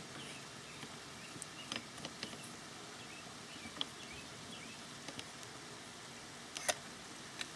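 Faint, scattered light metal clicks of an M1 Carbine's steel trigger housing being worked against the receiver to line up its pin holes, the sharpest click near the end.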